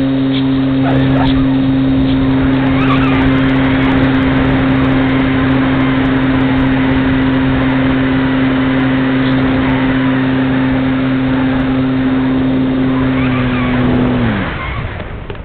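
Parkzone Radian Pro motor glider's brushless electric motor and propeller running at a steady high pitch during the climb after hand launch, with heavy air rush over the wing-mounted camera. About fourteen seconds in, the motor is cut and its whine slides down and falls away.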